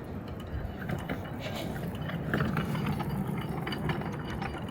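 A small ratcheting mechanism clicking rapidly and irregularly over a steady low background.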